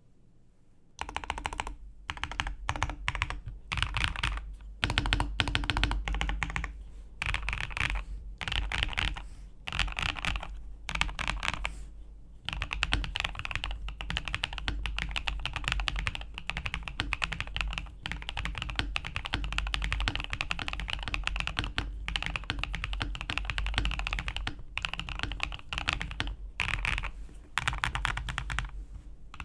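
Typing on a WK980 custom mechanical keyboard: rapid keystroke clicks starting about a second in, in short bursts with brief pauses at first, then fast continuous typing.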